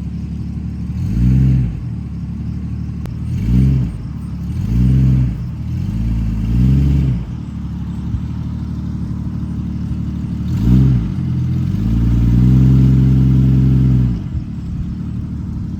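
A vehicle engine idling and being revved in short swells several times, then held at higher revs for about two seconds near the end.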